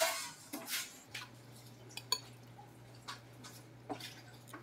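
Noodles slurped twice, then a few light clinks and taps of metal cutlery against a ceramic bowl.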